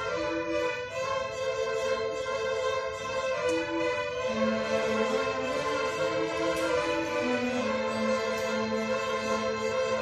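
Primary-school string orchestra of violins, cellos and double bass playing together: held chords in the upper strings over a lower line that moves from note to note.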